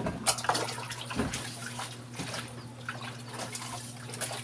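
Dishwashing at a sink: water running and splashing as a metal pan is washed, with scattered clinks and knocks of cookware and a plastic dish rack.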